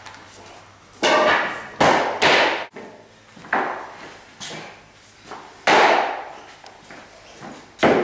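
A mallet knocking bamboo click-lock floorboards into place: about seven sharp knocks at uneven intervals, each ringing out briefly in the room.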